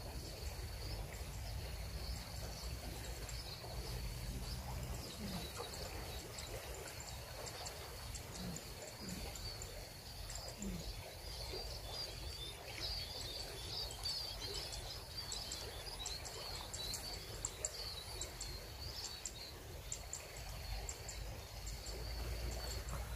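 Outdoor riverside ambience: a steady high insect drone with twittering bird chirps, busiest in the middle, over a low rumble.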